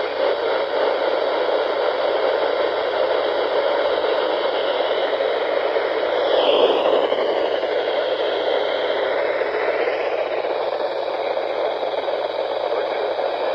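Radio receiver static: a steady hiss with no programme audio, with a faint whistle that wavers, dipping and rising again about halfway through.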